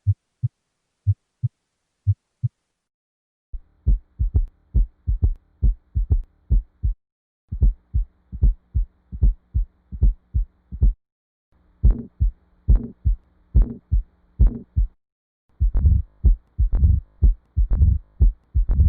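A sequence of recorded heart sounds played as teaching examples. It opens with a short clip of three clean lub-dub pairs (S1 and S2) about a second apart. Four longer clips follow with brief breaks between them, their beats coming closer together over a faint steady hum. In the last two clips each beat is drawn out into a brighter whoosh, like a heart murmur.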